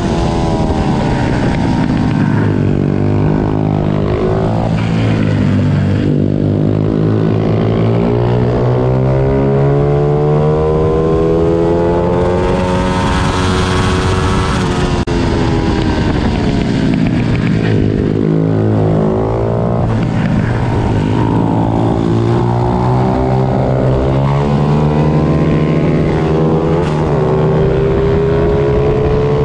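Several small 90 cc pit bike engines racing together, each repeatedly rising in pitch as it revs up and dropping back as it shifts or slows, the overlapping engine notes at different pitches.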